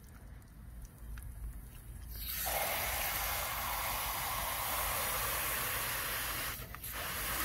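Garden hose spray nozzle running water into a small container, a steady hiss starting about two seconds in, with a brief break near the end.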